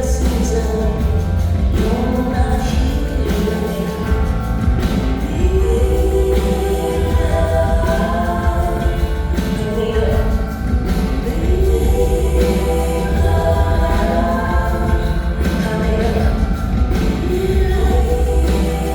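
Live song performance: a woman's sung melody over a strong, sustained bass line.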